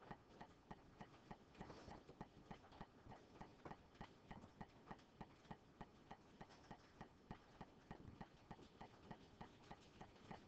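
Near silence: room tone with a faint, regular ticking, about three ticks a second.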